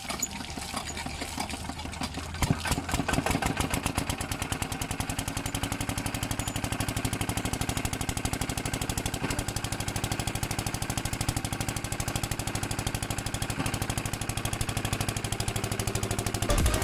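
A small engine running with a rapid, even firing beat, louder from about two seconds in.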